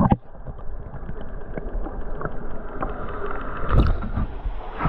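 Water sloshing and splashing as someone moves through a flooded cave passage, with small knocks throughout and one louder splash or thump nearly four seconds in.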